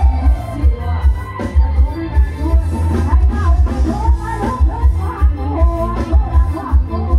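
Thai rot hae sound-truck band playing through its loudspeakers: a singer over a steady, heavy bass beat.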